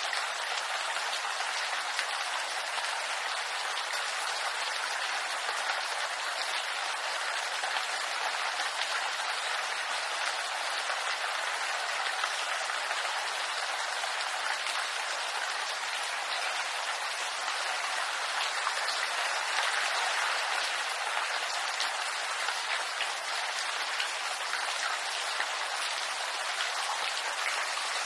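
Steady rain falling in a bamboo grove: an even hiss of rainfall with many small drop ticks.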